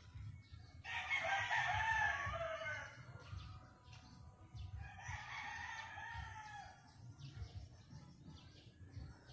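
Rooster crowing twice: a long crow about a second in, then a fainter one a few seconds later.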